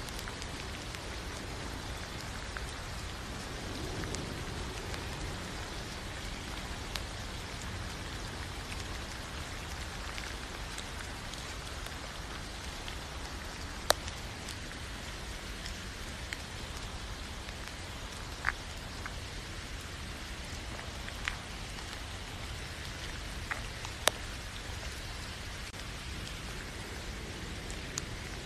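Steady rain falling, an even hiss, with a few sharp, louder ticks of single drops scattered through it.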